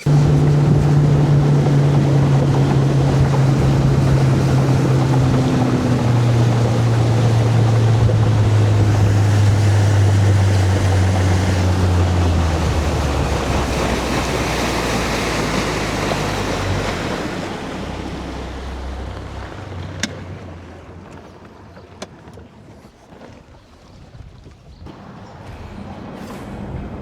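Bass boat's outboard motor running at speed with wind and water rushing past, its engine note stepping down in pitch as the throttle comes back. Near the end the motor dies away, leaving quieter water and wind noise with a couple of faint clicks.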